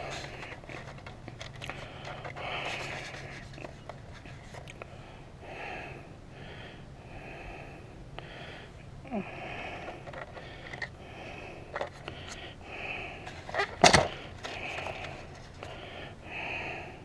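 Heavy, wheezy breathing, one breath about every second, from a man with bronchitis. Under it come small clicks and handling noises of an airsoft revolver's shells being loaded with BBs, with one sharper click a little before the end.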